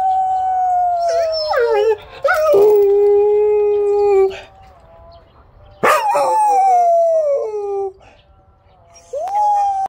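Jindo dog howling: long drawn-out howls that slide down in pitch, in three bouts, the first with a wavering break partway through.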